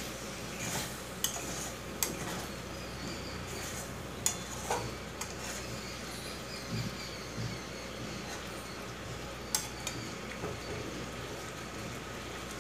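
Metal spatula stirring thick chutney in a steel kadai, scraping the pan, with a handful of sharp clinks of metal on metal over a low steady hiss.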